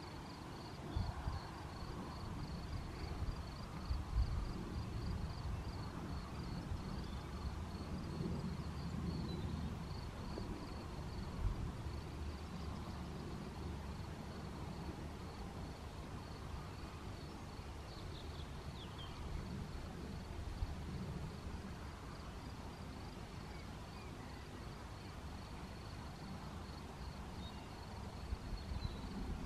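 A cricket chirping steadily in a high, even pulse, about three chirps a second, over a low rumble of wind on the microphone. A bird gives a few short calls about eighteen seconds in.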